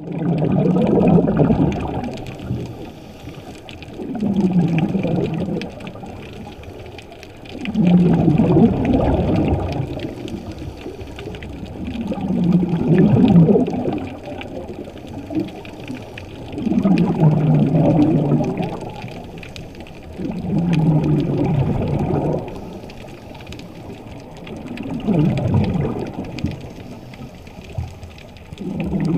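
Scuba diver's exhaled bubbles bubbling out of the regulator, heard underwater: a burst of about two seconds roughly every four seconds, in time with the diver's breathing.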